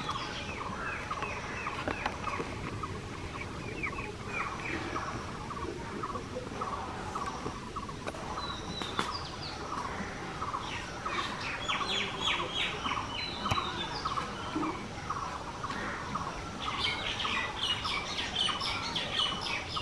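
Birds chirping and calling: many short calls repeated throughout, thickest and highest-pitched near the end.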